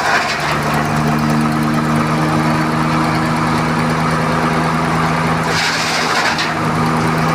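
Chainsaw engine running at a steady speed during wood milling, with a short burst of hiss about five and a half seconds in.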